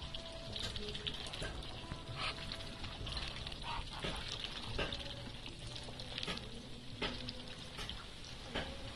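Muscovy ducks dabbling their bills in shallow water and wet mud: a steady crackling and sizzling with many small, quick clicks.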